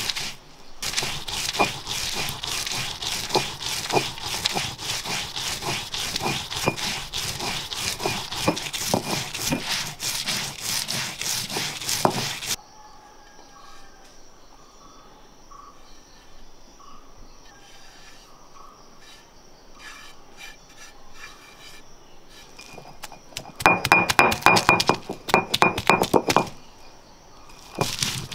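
Stone roller rubbed back and forth on a flat grinding stone (ammikallu), grinding grated coconut and red chilli into a coarse paste: a fast run of gritty scraping strokes. About halfway the grinding stops for a quieter stretch of light handling sounds, then starts again, loudest a few seconds before the end.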